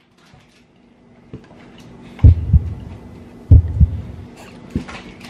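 Two pairs of loud, dull low thumps about a second apart, over a faint steady hum.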